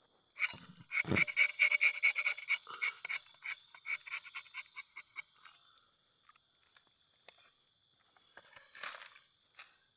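A sharp rubber-tapping knife shaving a thin strip of bark along the tapping groove of a rubber tree: a quick run of crisp scraping ticks, about four or five a second, that thins out and stops about five seconds in. Crickets keep up a steady high chirr throughout.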